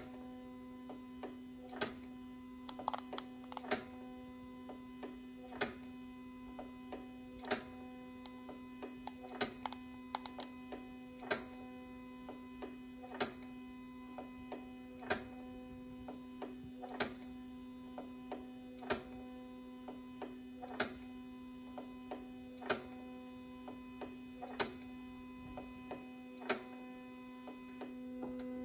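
Roland BN-20 eco-solvent printer running its ink pump cycle to fill new ink lines and head dampers: a steady electrical hum with a sharp mechanical click about every two seconds and lighter ticks in between.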